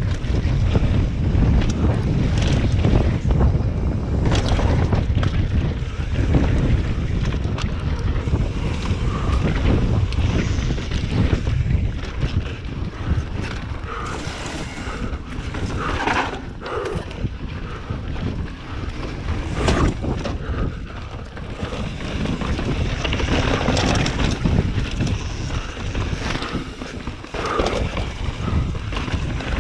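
Wind buffeting the microphone of a mountain bike's camera during a trail descent, over tyres running on dirt and rock. Frequent short knocks and rattles as the bike hits bumps.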